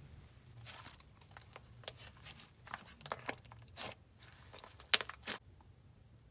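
Slime being squished and stretched by hand, giving off irregular little clicks and crackles. The loudest click comes just before five seconds in, and it goes quieter in the last second.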